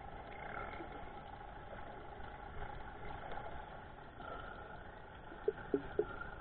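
Steady, muffled engine-like drone, as heard through an underwater camera housing, with three short faint clicks near the end.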